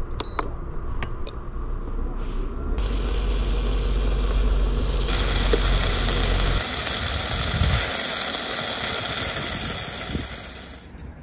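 Slices of raw beef sizzling in a hot non-stick frying pan: a steady frying hiss from about halfway in that stops shortly before the end. Before it, a low rumble and a few light clicks as the meat goes in.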